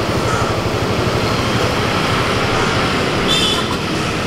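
Hot oil frying and sizzling on a large flat iron tawa, over a steady noisy rumble. A brief high squeak sounds a little past three seconds in.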